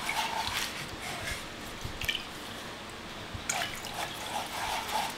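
Gloved fingers rubbing and squishing wet chili powder against a fine-mesh strainer set in a steel bowl of water, with soft splashing and dripping as the powder is worked into the water to dye it red. About three and a half seconds in, the rubbing turns into quicker, regular strokes.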